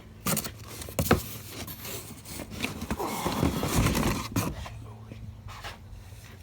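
Unboxing a heavy bench vise: a few sharp knocks with a rustling, scraping stretch of cardboard and packing being handled in the middle.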